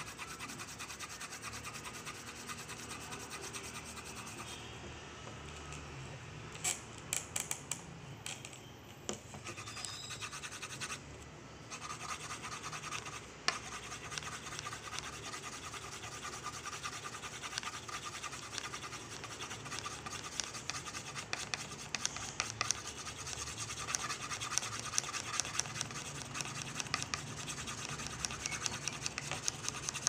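Colored pencil shading back and forth on paper, a rapid scratchy rubbing that grows busier in the second half. A few sharp clicks come between about seven and nine seconds in.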